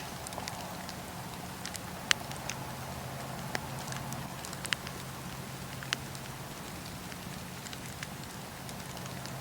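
Fireplace fire crackling: irregular sharp pops and snaps, a few of them louder, over a steady low background.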